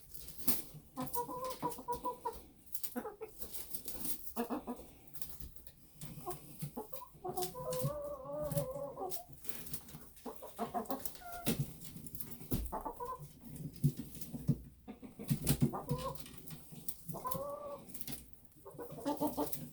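Hens clucking while they feed on kale: repeated short, pitched clucks and low murmuring calls, mixed with many sharp little taps and clicks.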